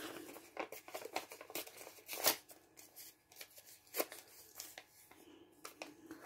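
A small piece of paper being handled and rustled by hand, a quick run of light crackles with two louder snaps, about two seconds and four seconds in.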